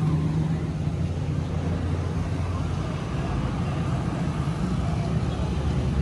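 An engine running steadily at a constant speed, a low even rumble.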